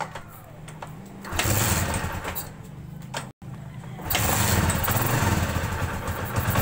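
Kawasaki Barako's single-cylinder four-stroke, 2-valve engine running after a valve-clearance adjustment, with none of the earlier valve clatter left. It gets much louder about a second in, cuts out for an instant, drops back briefly, and comes up loud again near four seconds.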